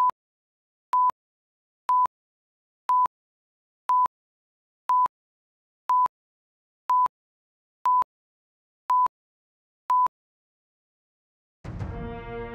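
Countdown-leader beeps: a short, steady, high beep once a second, eleven in all, with dead silence between. Music comes in just before the end.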